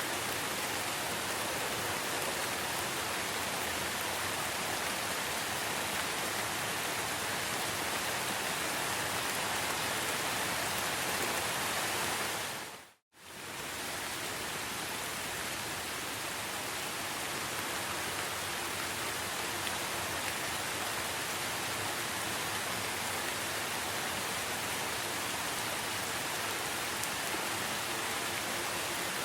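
Steady rain falling, an even hiss of many drops. About halfway through it fades out to silence for a moment, then comes straight back at the same level.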